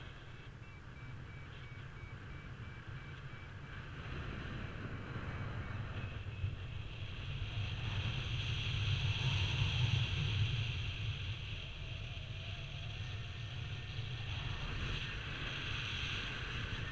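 Airflow rushing over a GoPro microphone on a paraglider in flight: a steady low rumble with a hiss above it, swelling to its loudest about halfway through and then easing. Faint quick high beeps from the variometer sound during the first few seconds.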